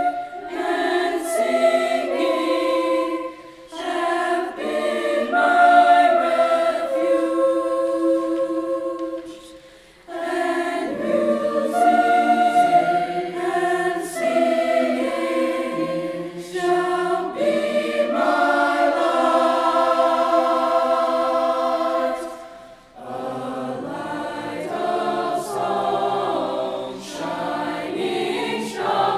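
Mixed-voice choir singing unaccompanied, holding chords phrase by phrase, with short breaks between phrases about three, ten and twenty-three seconds in.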